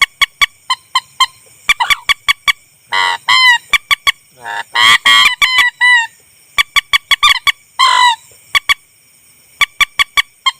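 Lure recording of mandar (rail or swamphen) calls: a run of short, sharp nasal notes, about three a second, broken by longer, louder honking calls with falling notes about three, five and eight seconds in.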